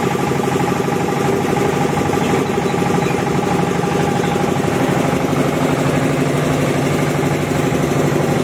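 A concrete mixer's small diesel engine running steadily at constant speed and turning the loaded mixing drum.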